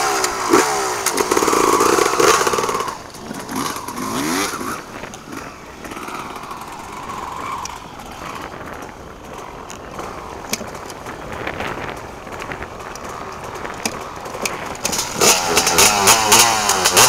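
Motocross bike engines running close by, revved up and down in the first few seconds and again near the end, and ticking over more quietly in between.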